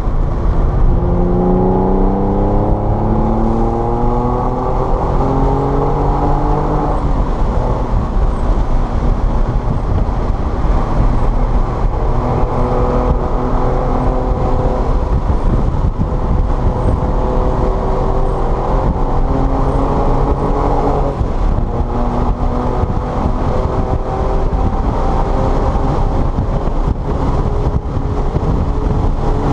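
Car engine pulling hard on a race track, its pitch rising for several seconds and then dropping at gear changes about 7 and 21 seconds in, over constant road and wind noise.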